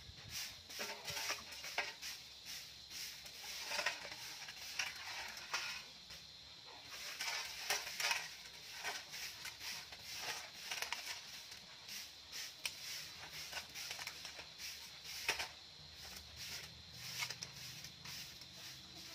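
Stick broom (a walis tingting of thin coconut-leaf ribs) sweeping dry leaves and dirt across bare ground: an irregular run of short scratchy strokes. A faint steady high tone runs underneath.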